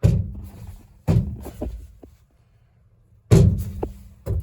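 Four heavy, dull thumps: three about a second to two seconds apart, the last near the end, each dying away quickly.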